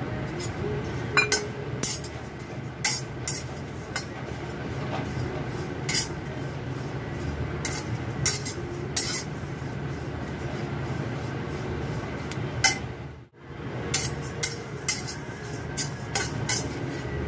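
A metal spatula scraping and clinking against a black kadai as dry poha (flattened rice) is stirred and tossed while it heats. Irregular clinks and scrapes sound over a steady low hum, with a brief dropout about thirteen seconds in.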